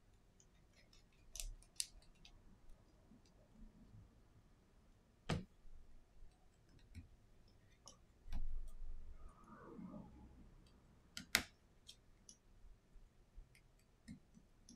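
Quiet, scattered clicks and ticks of a small precision screwdriver and tweezers against the metal brackets and frame of an iPhone SE 2020 display assembly, with a few sharper clicks. Around eight seconds in there is a longer, lower handling sound of the parts being moved on the silicone mat.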